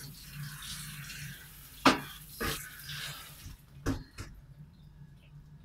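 Tap water running into a bowl of parboiled kumquats at a kitchen sink, fading out about three and a half seconds in. A few sharp knocks of the bowl and colander against the sink, the loudest about two seconds in. A steady low hum runs underneath.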